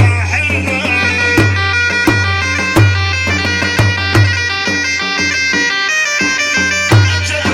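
Instrumental Iraqi choubi dance music: a reedy wind-instrument melody of stepped notes over a steady drone, with a deep drum beating a regular pulse about every 0.7 seconds.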